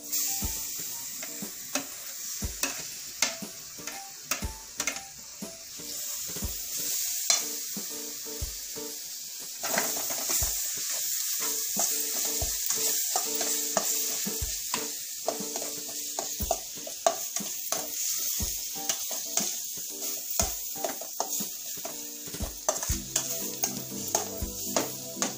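Chopped tomatoes sizzling in hot oil and spice paste in a stainless steel kadai, with a spatula scraping and knocking against the pan as they are stirred. The sizzle grows louder about ten seconds in.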